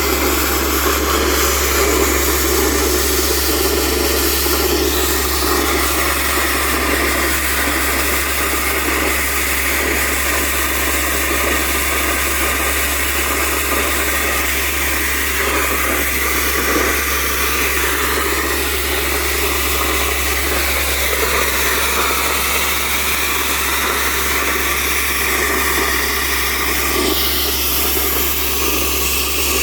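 Compressor machine running steadily while cleaning a borewell: a continuous loud mechanical drone with a constant low hum and a noisy rush on top.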